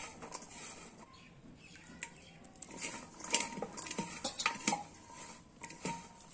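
A hand tossing slit okra strips coated in gram flour and spice powder in a stainless steel bowl: rustling with irregular light clicks of the okra against the steel.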